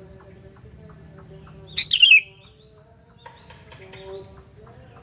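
Sooty-headed bulbul giving one loud, short call of two quick notes, the second falling, about two seconds in. Fainter high, falling chirps follow over a faint low hum.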